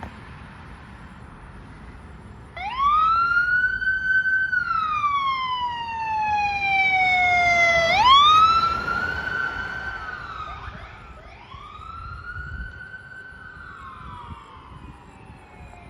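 Fire apparatus siren on wail, each cycle rising quickly, holding briefly, then falling slowly over about three seconds. It starts about two and a half seconds in, is loudest around the middle, then grows fainter, over a low hum of traffic.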